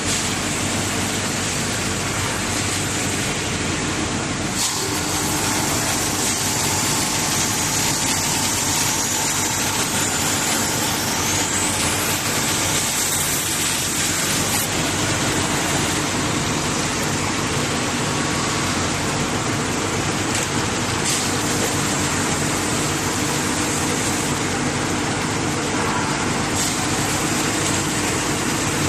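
CNC double-sided knife sharpening machine running: steady machine noise with a strong high hiss and a faint hum. A short rising whine comes about twelve seconds in.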